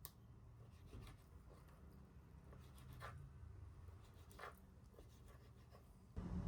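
Quiet room tone with a few faint, scattered light taps, about one every second or two. The steady background becomes noticeably louder just before the end.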